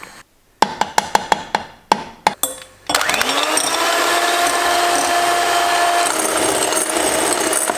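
A quick run of sharp clicks and taps, then an electric hand mixer starts up with a short rising whine. It runs steadily, whipping egg whites to stiff peaks in a glass bowl.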